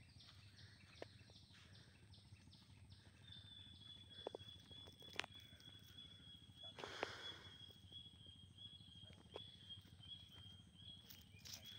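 Near silence: faint outdoor ambience with a thin, steady high tone that sets in about three seconds in, a few faint ticks, and a brief soft rush of noise about midway.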